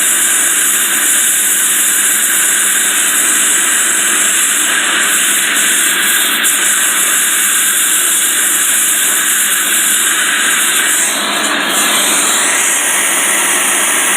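Gas torch flame running with a steady hissing rush as it heats the end of a steel pin so it can be swaged over.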